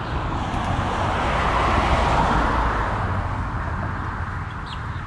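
A car passing on the road alongside: tyre and road noise swells to a peak about two seconds in, then fades away.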